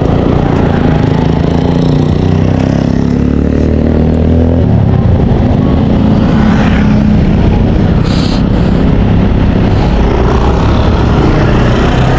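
Motor vehicle running on the road: a loud, low rumble, with the engine's pitch shifting up and down.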